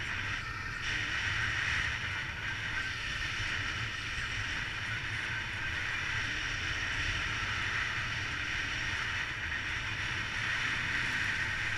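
Steady rush of air over an action camera in paraglider flight: a constant low wind rumble with a hiss on top.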